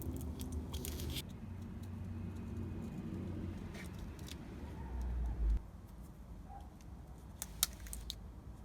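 Handling noise: a low rumble with scattered light clicks, a dull thump about five and a half seconds in, then a few sharp clicks near the end.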